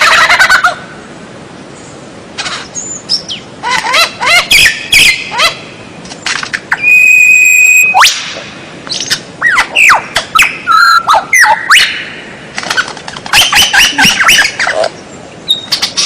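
White-rumped shama singing a varied song in separate phrases of loud whistles, rising and falling glides and quick runs of notes, with one long steady whistle about seven seconds in.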